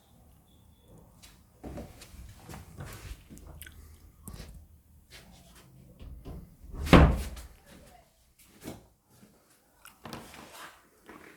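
Scattered indoor knocks and bumps in a small room, with one loud thump about seven seconds in.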